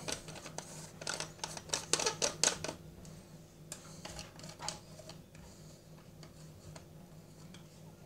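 Plastic clicks and scraping from a PMG 802 rotary telephone's handset being handled and opened: a dense run of clicks for the first few seconds, then scattered single clicks.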